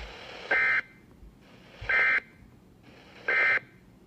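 Three short bursts of Emergency Alert System data tones on NOAA Weather Radio: the end-of-message code that closes a warning. Each burst is a buzzy warble lasting about a third of a second, the first about half a second in and the rest about 1.4 s apart, over faint radio hiss.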